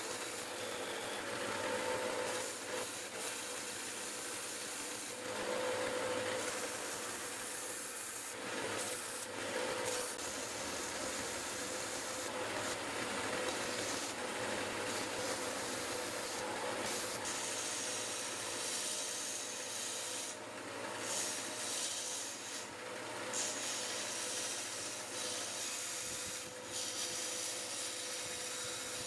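Narrow belt sander running while an oak handle is pressed against its belt and shaped: a steady motor and belt hum under a sanding hiss that swells and eases as the wood is pressed on and lifted off.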